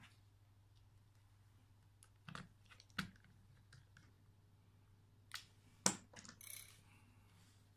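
A handful of small sharp clicks and taps from the plastic back case of a Casio fx-3600Pv calculator, its tiny screws and a precision screwdriver being handled on a desk mat. The loudest click comes about six seconds in, followed by a short scrape.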